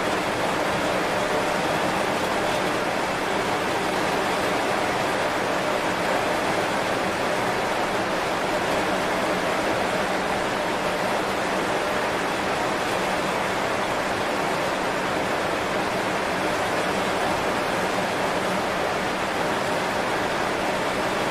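Heavy rain falling on banana leaves: a steady, even hiss with no single drops standing out.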